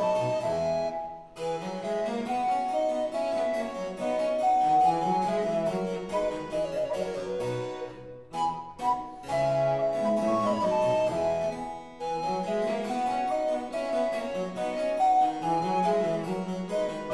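Instrumental background music with a quick running melody of keyboard notes, briefly breaking off about eight seconds in before the phrase starts again.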